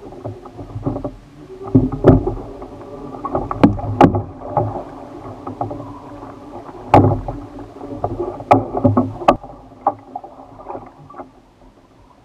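Paddling a Stealth Profisha 475 sit-on-top fishing kayak: paddle strokes splashing and water sloshing against the plastic hull, with several sharp knocks spread irregularly through it.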